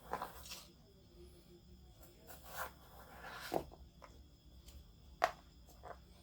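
Vegetable peeler scraping the skin off a potato in short strokes, with light clicks and knocks in between.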